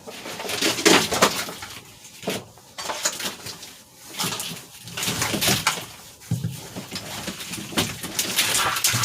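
Irregular rustling, scraping and clicking of a car's wiring harness and its plastic clips and connectors being worked loose by hand.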